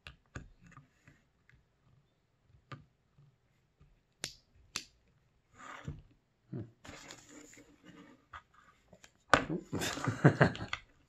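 Small plastic toy figure and its snap-on plastic stand clicking and tapping as they are handled on a tabletop, with two sharp clicks about four seconds in. A louder burst of handling noise comes near the end.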